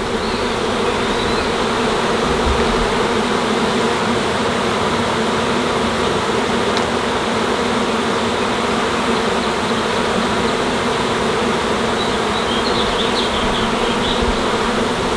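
A swarm of tens of thousands of honeybees buzzing in a steady, dense hum as they cluster in a tree and pour into a temporary hive box.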